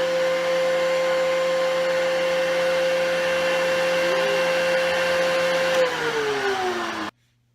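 DeWalt 735 thickness planer running with no board in it, a steady high whine over the rush of its chip-ejection fan blowing into a filter bag. About six seconds in it is switched off and the whine falls in pitch as it winds down, then the sound stops abruptly.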